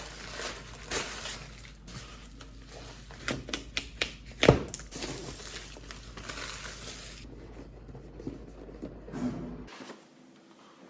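A mechanical keyboard's box and wrapping being opened and handled: crinkling and rustling of packaging with scattered knocks and clicks, the sharpest a little over four seconds in.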